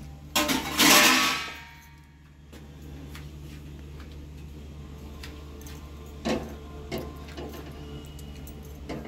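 A metal bowl clangs once, loudly, about half a second in, and rings briefly as it dies away. A few faint knocks follow later over a steady low hum.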